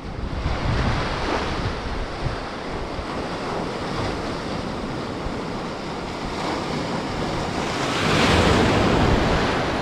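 Sea surf washing on the shore, with wind buffeting the microphone; a wave surges in louder about eight seconds in.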